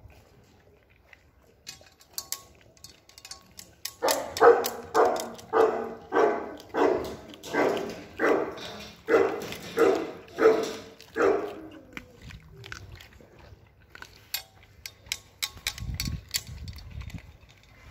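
A dog barking in a steady run of about a dozen barks, roughly two a second, starting about four seconds in and stopping short of the middle; faint clicks and ticks follow.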